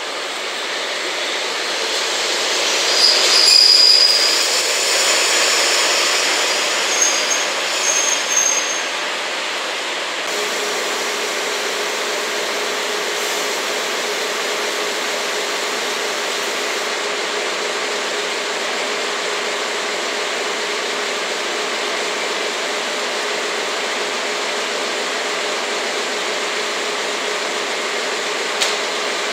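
DE10 diesel-hydraulic locomotive creeping in and coming to a stop, with brief high-pitched squeals from its wheels and brakes twice in the first ten seconds. It then stands with its engine idling, a steady hum under running noise. A single click comes near the end.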